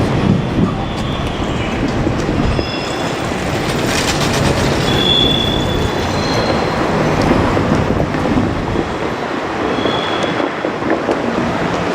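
Diesel railcar train of the KiHa 47 series running by on jointed track with a steady rumble and wheel clatter. Short high wheel squeals come several times.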